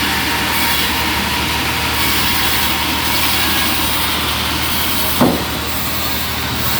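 Engine-driven bandsaw sawmill running steadily, its blade cutting through a trembesi log. A short thump about five seconds in is the loudest moment, after which the sound eases slightly.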